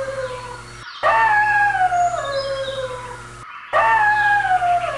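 Wolf howling: long calls that slide down in pitch. One fades just after the start, another begins about a second in, and a third begins near the end.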